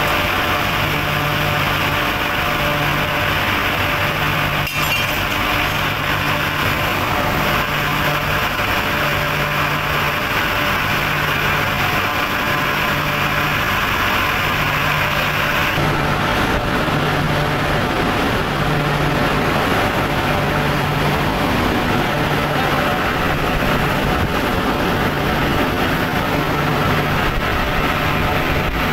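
Loud, steady industrial machinery noise, with a low hum that pulses on and off about once a second. The noise changes abruptly about halfway through.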